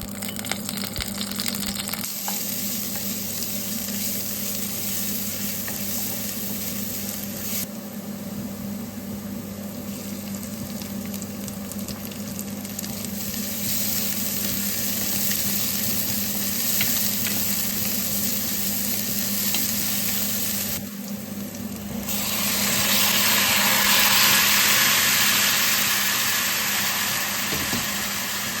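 Food sizzling as it fries in a pan, a steady hiss over a low hum, breaking off abruptly a few times and getting louder about three-quarters of the way through.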